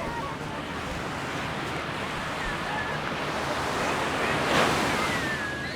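Small Mediterranean waves washing onto a sandy beach, the surf swelling to its loudest as a wave breaks about four and a half seconds in, then easing back. Faint voices of people on the beach.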